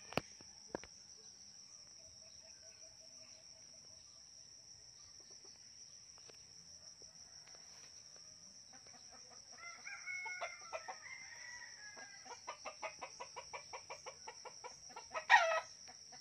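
Chickens: a rooster crows about ten seconds in, then a fast run of clucks follows and a loud squawk comes near the end, over a steady high-pitched insect drone.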